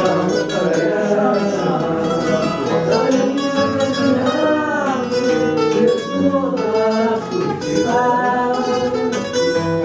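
Fado music: a Portuguese guitar and a viola de fado playing the accompaniment, with a male voice singing a long, drawn-out phrase over it.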